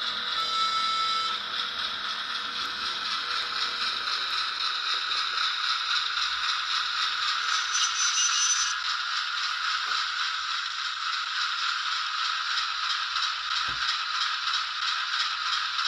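Hornby Class 08 shunter model's DCC sound decoder playing its diesel engine sound through the loco's small speaker as the model runs: a steady, tinny, faintly rhythmic mechanical running sound. Its deeper tones fade about four seconds in, and there are a couple of faint knocks later on.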